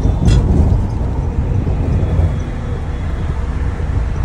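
Steady low engine and road rumble inside a moving bus.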